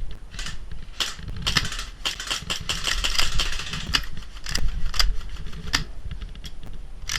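Irregular sharp clicks and snaps of airsoft gunfire, densest around three seconds in, over a steady low rumble on the microphone.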